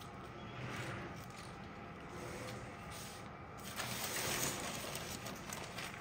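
Baking paper rustling and crinkling as hands roll a sheet of pizza dough up on it. The rustle grows louder and crackly about two-thirds of the way in.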